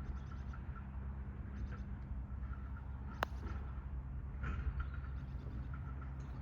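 A putter striking a golf ball once, a single sharp click about three seconds in, over a steady low rumble and faint bird chirps.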